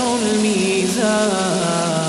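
A man's voice chanting Quran recitation in drawn-out melodic tajweed, holding one long note that sinks slowly, then starting a new melodic phrase about a second in. A steady rain hiss runs underneath.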